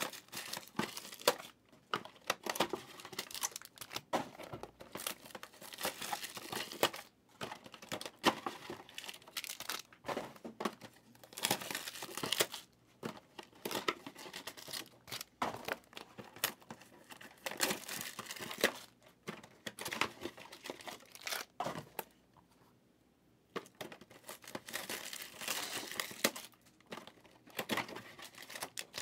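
2023 Bowman Chrome University trading-card boxes and foil packs being torn open and crinkled: irregular rips and rustles, with a short pause about three quarters of the way through.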